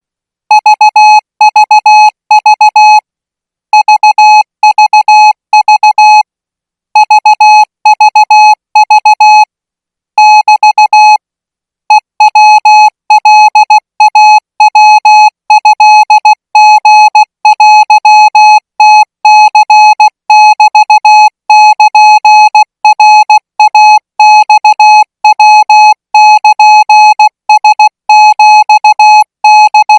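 Thai Morse code sent as a keyed audio tone at 20 words per minute: a single steady mid-pitched beep switched rapidly on and off in short and long elements. A few longer pauses come in the first twelve seconds, then the keying runs on without a break.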